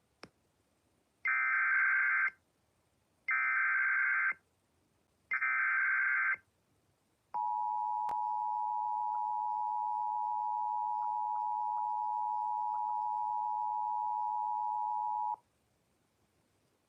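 Emergency Alert System header: three bursts of digital SAME data tones, each about a second long and about a second apart. Then the EAS two-tone attention signal holds steady for about eight seconds and cuts off. Together they mark the start of an emergency alert, here a severe thunderstorm warning.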